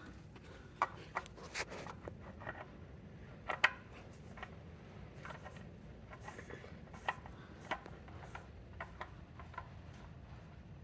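Scattered light clicks and taps from handling a new oil filter as it is fitted and threaded on by hand, over a faint steady low hum.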